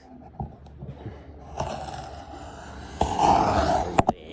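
Rustling and scraping handling noises that grow louder partway through, with a couple of sharp knocks near the end.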